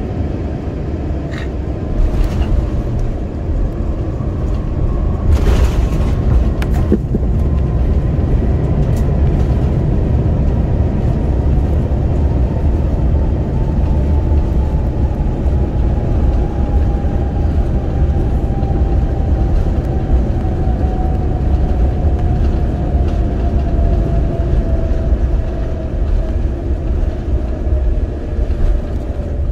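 Cabin noise of an Airbus A350-900 rolling out on the runway after touchdown: a loud, heavy rumble from the wheels and Rolls-Royce Trent XWB engines, with a whine that falls slowly in pitch as the aircraft slows, and a few rattles in the first several seconds.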